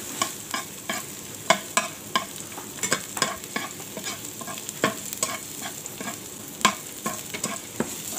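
Crushed garlic sizzling in hot oil in a frying pan, with a steady hiss. A spatula scrapes and taps against the pan at irregular moments as the garlic is stirred.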